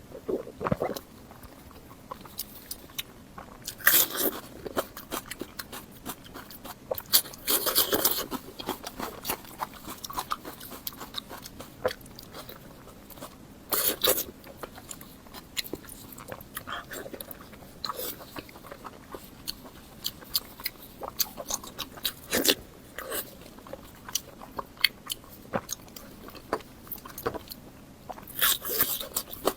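Close-miked chewing and biting of fatty pork, with many short mouth clicks and louder bites every few seconds.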